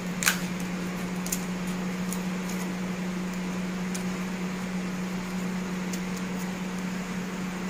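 Steady low mechanical hum at one even pitch, with a sharp click about a quarter-second in and a few faint ticks after it.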